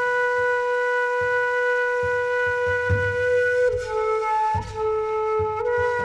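Background music: a flute holding long, sustained notes over soft low drum hits, the melody stepping down a little about two-thirds of the way in and back up near the end.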